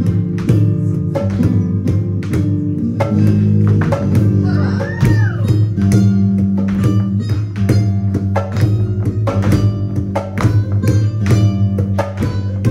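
Live flamenco music: guitar over a sustained low bass line, punctuated throughout by many sharp percussive strikes. A brief rising-and-falling sliding tone sounds about five seconds in.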